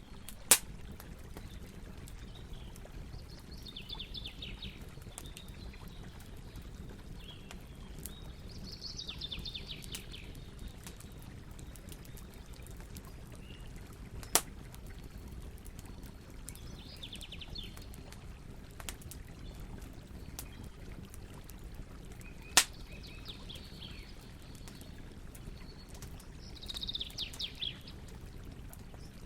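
Campfire burning with a steady low hiss and small crackles, broken by three loud sharp pops: about half a second in, near the middle, and about three-quarters of the way through. Birds sing in short chirping phrases five times in the background.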